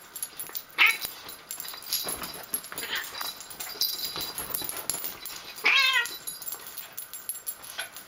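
A hairless cat giving short meowing cries during a play-fight with a hairless dog, the loudest a longer cry with wavering pitch about two-thirds of the way through, over rustling and scuffling on bedding.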